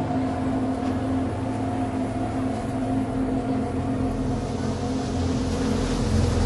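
A steady low drone of several held tones over a deep rumble that swells near the end.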